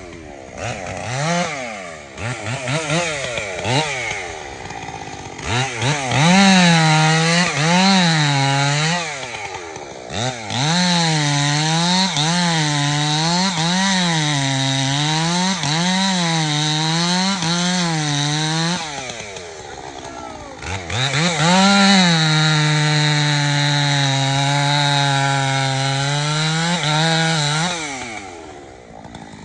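Two-stroke chainsaw cutting into a large white oak log. The engine pitch rises and falls about once a second as the saw loads and recovers in the cut, then holds steady under load before easing off near the end.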